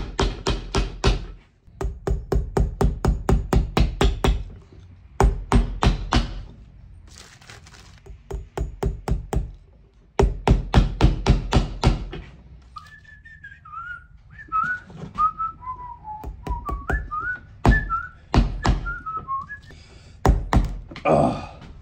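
Hammer driving iron hobnails into a wetted leather boot sole on a metal last: quick runs of taps, about six a second, broken by short pauses. In the second half the hammering thins to a few single blows while a tune is whistled.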